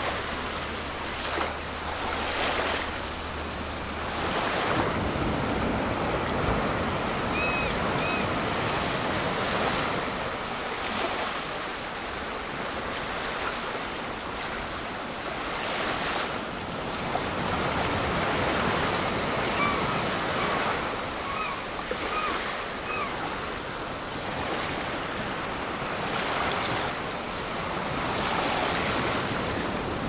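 Ocean waves breaking and washing up a shore, the surf swelling and ebbing every few seconds. A few faint short chirps come through about 7 seconds in and again around 20 seconds in.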